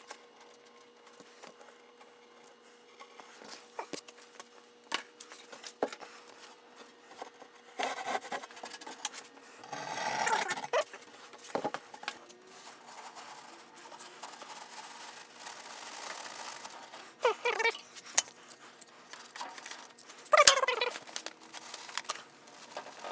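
Handling of furnace insulation materials: scattered light knocks and clicks and a scrape, with a few short squeaks that fall in pitch, over a faint steady hum.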